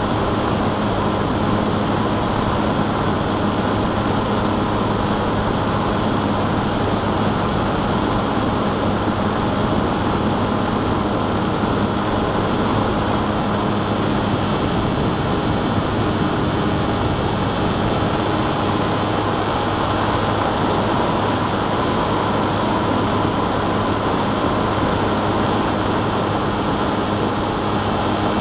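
Electric motor and propeller of an FPV model aircraft running steadily in flight, heard through its onboard microphone: a constant drone with a steady hum and noise.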